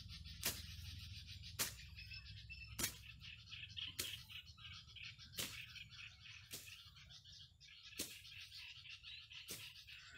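Birds and insects chirping steadily, with a sharp stroke about every second or so at slightly uneven intervals, which fits grass being cut by hand with a blade.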